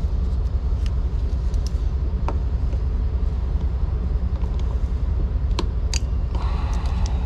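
A vehicle engine idling close by, a steady low rumble, with a few sharp metallic clicks and taps from tools being handled.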